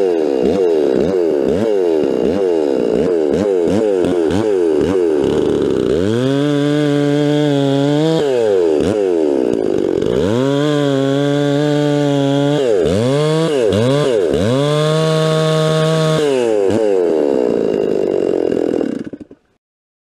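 Mildly ported Stihl MS 360 two-stroke chainsaw with a new bar and semi-chisel chain, free-revving: quick throttle blips up and down for several seconds, then several spells held at full throttle with drops between. Near the end the revs fall and the sound cuts off suddenly.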